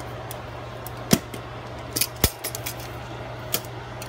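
Several sharp clicks and clinks as a stainless-steel canister's wire-bail clasp and clear lid are worked open, with lighter ticking as a hand rummages among the foil seasoning packets inside.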